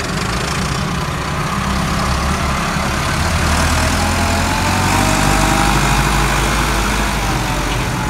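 Farm tractor's diesel engine running steadily as it tows a low-bed trailer loaded with a road roller past, growing a little louder about five seconds in as it draws level.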